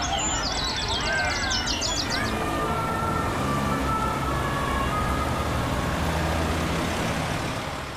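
Birds chirping and trilling for the first two seconds, giving way to steady city traffic noise with a distant siren, which fades out at the end.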